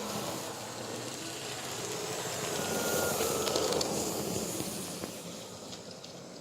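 Märklin 37806 H0 model locomotive running with its sound module switched off, so only its electric motor and gears are heard as a steady mechanical hum. It grows louder toward the middle, with a few faint clicks, then fades near the end.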